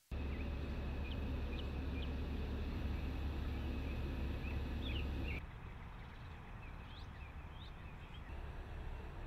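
Outdoor ambience of birds chirping, with short high calls scattered throughout over a steady low rumble. About five seconds in, the rumble drops away and the background turns quieter, while the chirps go on.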